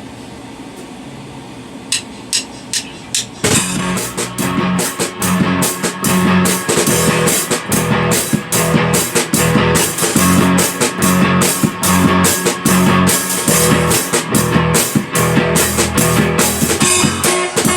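Four quick, evenly spaced clicks, a count-in, then a rock band comes in together with drum kit and guitar and plays on steadily.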